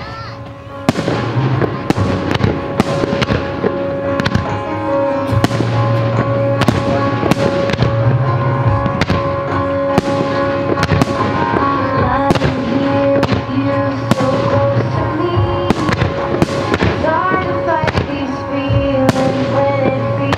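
Aerial firework shells bursting one after another, sharp bangs about every half second to a second, starting about a second in, over music with held notes and a bass line.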